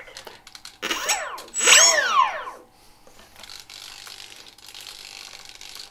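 Small brushless outrunner motor (2408-1200KV) spinning with no propeller fitted, throttle blipped twice: a whine that rises and falls quickly, then spins up again and winds down in a falling whine.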